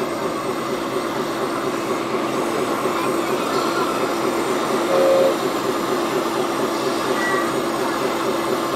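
Radio-controlled Komatsu excavator's motors running with a steady whine as the machine digs and moves on its tracks, with a brief higher tone about halfway through.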